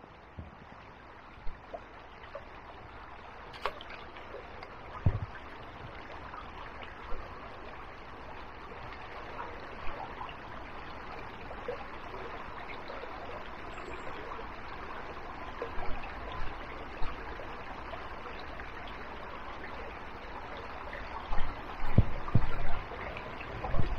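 Steady rush of flowing river water, with scattered short knocks and handling noises and a cluster of louder thumps near the end.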